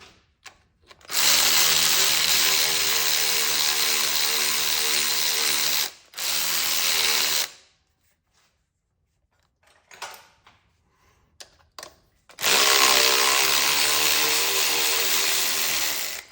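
Handheld power tool motor running in long steady bursts: about five seconds, a short second burst, then after a pause with a few light clicks, another run of about four seconds that winds up at its start.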